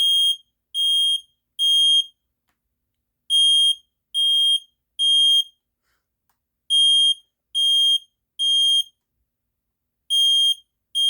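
Smoke alarm sounding on test in the temporal-three evacuation pattern: three high-pitched half-second beeps, a pause of about a second and a half, then three more, repeating steadily; a fourth group starts near the end.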